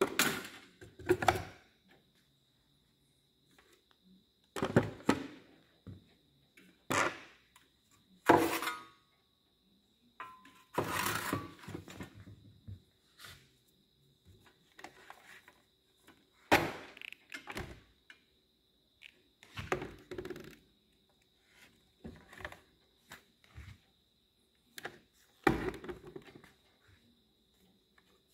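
Power tools being picked up and set back down on a workshop tool table: a series of separate thunks and knocks of tool bodies against plywood and steel, about a dozen spread out with short quiet gaps.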